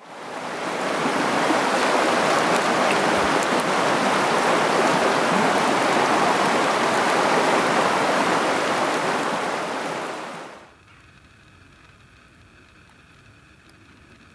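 Rushing stream water, a steady loud rush that fades in at the start and drops away about ten and a half seconds in, leaving only a faint quiet background.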